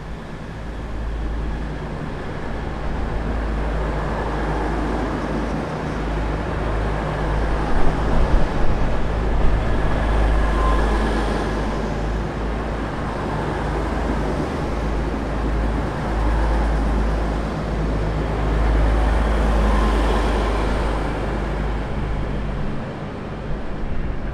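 V/Line VLocity diesel multiple unit running through the station without stopping. Its diesel engines drone steadily beneath the wheel and rail rumble, which grows louder as the train draws level and rushes past.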